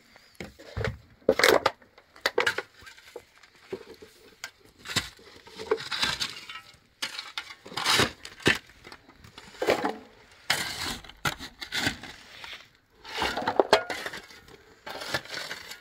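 A series of irregular knocks, clinks and scrapes of hard objects being handled, some sharp and some drawn out over a second or so.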